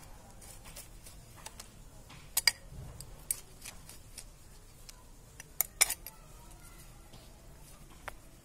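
Hands firming soil into a small ceramic plant pot: scattered sharp clicks and taps against the pot, a close pair about two and a half seconds in and the loudest cluster around six seconds in.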